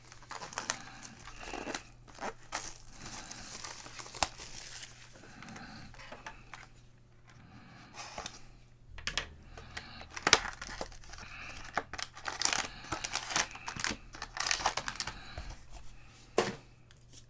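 A cardboard trading-card box being pried and torn open by hand, then its foil pack handled, with irregular crinkling, tearing and sharp clicks.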